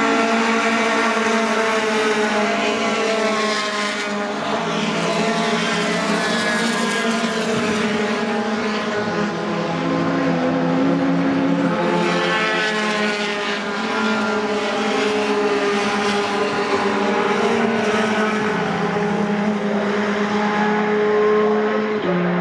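Several racing pickup trucks' engines running hard at race speed, overlapping as they pass, their pitch sweeping up and down as they go by.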